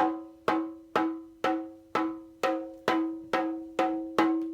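One pitched percussion note struck over and over, about twice a second, each strike ringing briefly and dying away before the next, coming slightly faster near the end.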